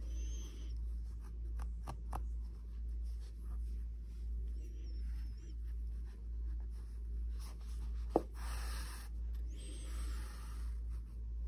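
A needle and yarn being drawn through a plush crocheted amigurumi while embroidering eyes: soft scratchy rubbing strokes as the yarn is pulled, with a sharp click a little after eight seconds, over a steady low hum.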